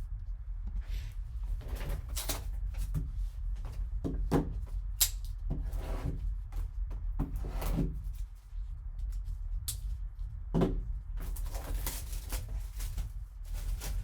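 A sealed baseball card box being unwrapped and opened by hand: irregular crinkling, rustling and clicks of wrapper and cardboard, over a steady low hum.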